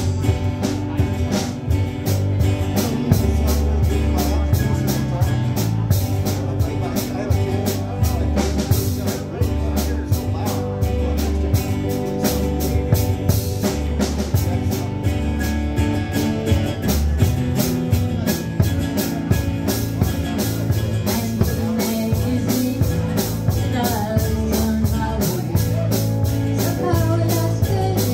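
Live band playing a song: a drum kit keeping a steady beat under lead guitar and bass guitar.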